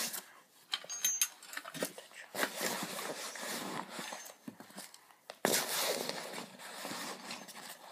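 Camping gear being stuffed back into a backpack: fabric rustling and scraping, with a few knocks as items go in, the loudest about five and a half seconds in.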